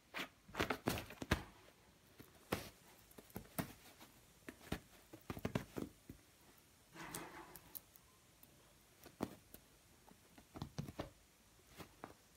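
Irregular soft taps, scuffs and rustles of a long-haired kitten pouncing on and batting at a toy on a cloth-covered bed, with a burst of quick taps in the first second or so and a longer rustle about seven seconds in.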